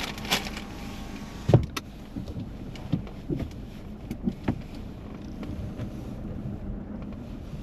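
Steady low rumble of a car heard from inside the cabin, with several short knocks and thumps, the loudest about one and a half seconds in.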